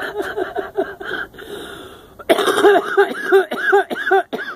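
Miniature donkey braying: a long hee-haw run of short, rhythmic pitched strokes at about three a second, breaking off for a breath after about a second and starting again.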